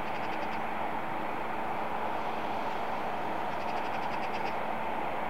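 Boeing 787-8 jet engines running steadily, heard as an even rush with a low hum. A faint, rapid high chirping comes twice: at the start and about four seconds in.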